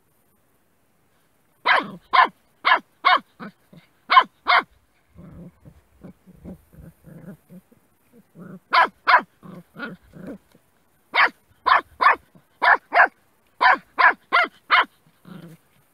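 A puppy barking at a snake in short, sharp runs of high yapping barks, about two or three a second. The runs start about two seconds in, again near the middle and again later on. Between the first two runs come softer, lower calls.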